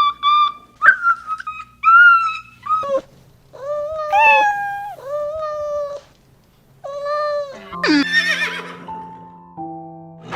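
A cat meowing: a run of drawn-out, pitched meows, the later ones lower and about a second each. Near the end a short noisy burst, then music with held notes.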